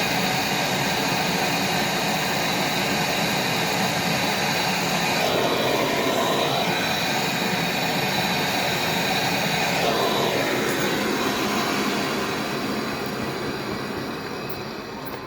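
Gas brazing torch burning with a steady roaring hiss while a copper refrigeration joint is heated, dying away near the end as the flame is shut off.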